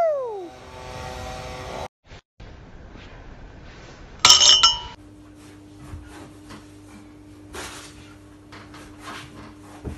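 A sharp ringing clink of a glass bottle, struck as a kicking shoe catches its cap, about four seconds in. After it comes quieter room sound with a low steady hum and faint small clicks.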